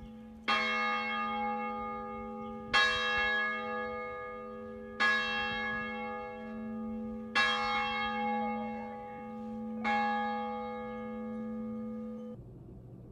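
A single church bell tolling five times, about two and a half seconds apart. Each stroke rings on into the next, and the ringing cuts off suddenly near the end.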